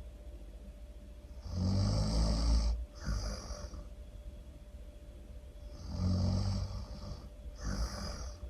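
A person snoring through two full breaths. Each is a low, rattling snore on the in-breath, followed by a short, airy hiss on the out-breath.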